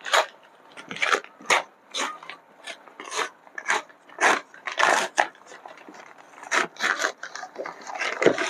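Large paper shipping bag being torn open and crumpled by hand: a series of short, irregular rips and crinkles.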